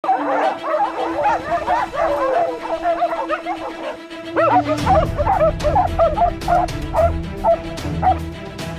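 A pack of hunting dogs baying and yelping rapidly in pursuit of wild boar, many overlapping calls that thin out near the end. Background music plays underneath, with a low bass part coming in about halfway.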